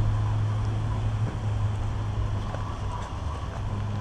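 Steady low hum under a light, even outdoor background noise.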